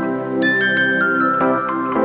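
Background music: a soft sustained chord bed with a run of bell-like mallet notes stepping down in pitch, starting about half a second in.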